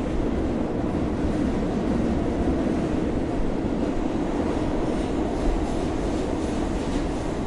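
New York City subway train running with a steady low rumble.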